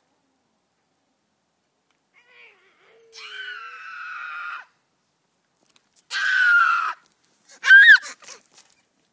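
A young child's high-pitched shrieks, three in all: a long wavering squeal about three seconds in, a louder falling shriek around six seconds, and a short, loudest rising-and-falling shriek about a second later.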